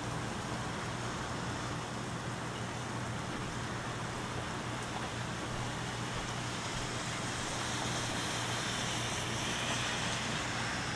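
Steady rain hiss with traffic noise from tyres on wet pavement. The hiss swells over the last few seconds as a vehicle passes, over a steady low hum.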